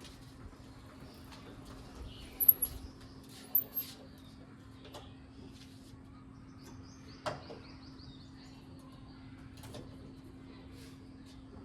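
Birds chirping in a few short, sharp, very high calls a couple of seconds in, then a falling run of chirps with a single click about seven seconds in, over a steady low hum.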